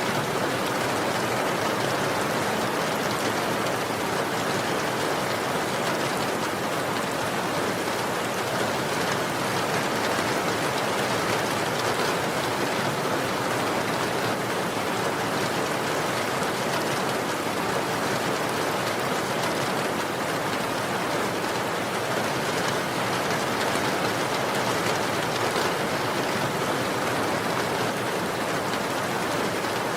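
Steady, unbroken rainfall: an even hiss of falling rain with no change in strength.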